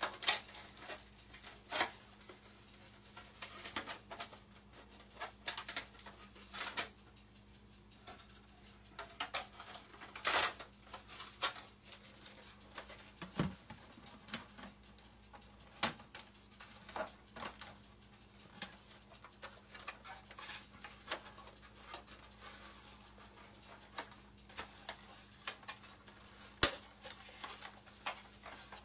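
Plastic model-kit parts and packaging handled and packed into a cardboard kit box: scattered irregular clicks, taps and rustles, with one sharper knock near the end.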